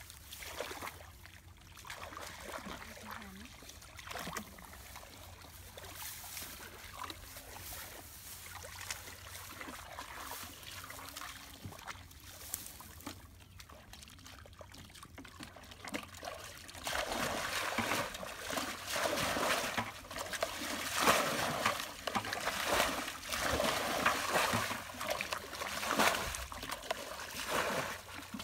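Shallow muddy water being splashed and bailed out with a basin, with dribbling and splashing as water is scooped and poured. The splashing turns louder and more frequent a little past halfway.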